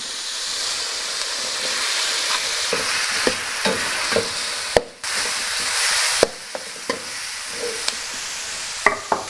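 Sliced onions sizzling in a hot, seasoned iron wok, stirred with a metal wok spatula that clicks and scrapes against the pan. The sizzle surges around five seconds in, then settles a little quieter.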